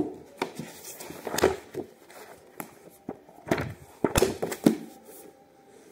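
Pages of a new thick paperback study module being flipped and fanned by hand: a string of irregular paper flaps and rustles.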